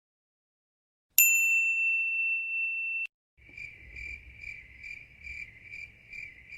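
Two stock sound effects: a single bright ding that rings for about two seconds and cuts off, then a cricket chirping steadily at about two and a half chirps a second.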